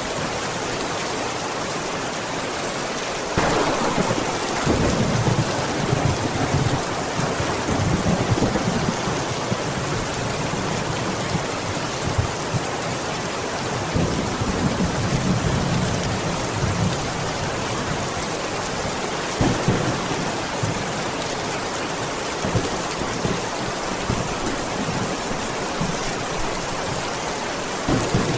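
Steady heavy rain hissing throughout, with a sharp thunderclap about three seconds in that rolls on as low rumbling for several seconds. More thunder rumbles about halfway through.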